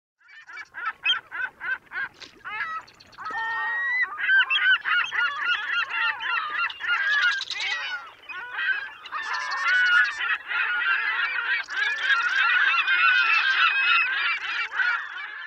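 A large flock of birds calling: a few separate calls at first, then many calls overlapping into a dense chorus from about four seconds in, ending abruptly.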